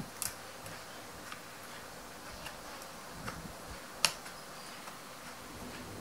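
Light clicks and taps as a 2.5-inch SSD is handled and set into a laptop's drive bay, with one sharper click about four seconds in.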